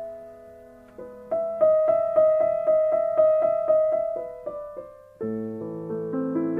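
Background piano music: a light melody of repeated notes, about three a second, giving way to sustained lower chords about five seconds in.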